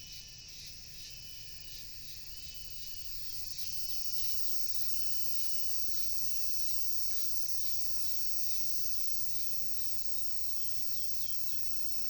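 Steady high-pitched chorus of insects, with a bird repeating a short note about once a second over the first few seconds and giving a few quick falling chirps near the end.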